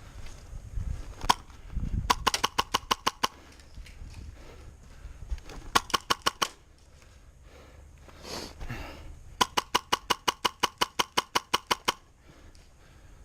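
Airsoft gun firing on full auto in three bursts of about eight shots a second, the last and longest lasting over two seconds, after a single shot near the start.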